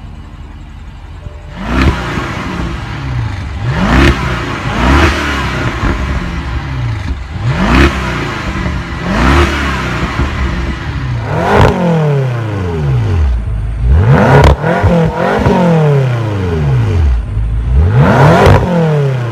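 Twin-turbo V8 exhaust of a parked BMW Alpina B6 Gran Coupe, idling and then blipped about ten times. Each rev rises sharply in pitch and falls back to idle. Near the end the picture changes to a BMW M6 Gran Coupe's V8 being revved the same way.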